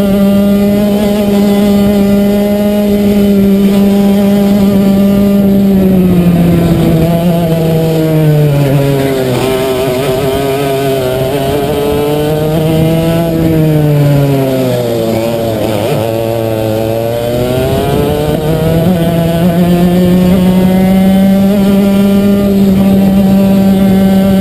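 Racing kart engine heard from on board, held at high revs at full throttle. About seven seconds in the revs fall as the kart slows for a corner, pick up briefly, then fall again before climbing steadily back to full speed.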